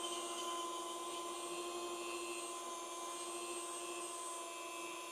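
Dremel rotary tool running at high speed, spinning a stick of 2.85 mm 3D printer filament pressed into the seam between two 3D-printed plastic parts to friction-weld them. It gives a steady, even whine.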